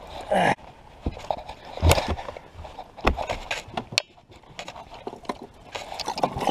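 A bass being lifted aboard a fishing boat and handled toward the live well: a short burst of noise at the start, then scattered knocks and scrapes against the boat as the fish is held and moved.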